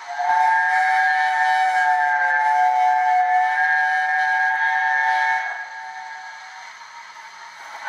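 The sampled chime whistle of an LNER A4 Pacific, played through the small speaker of a Zimo sound decoder in an OO gauge model locomotive. It is the decoder's playable whistle: several notes sound together, held steady for about five seconds, then stop, leaving a faint hiss.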